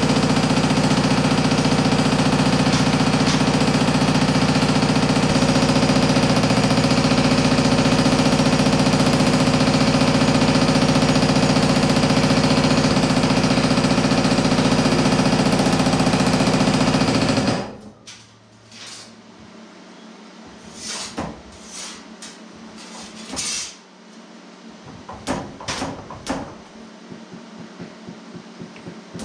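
A power hammer running steadily, pounding a sheet-metal panel with rapid continuous blows, then stopping abruptly about 18 seconds in. After it stops come a few light knocks and clatter as the panel is handled.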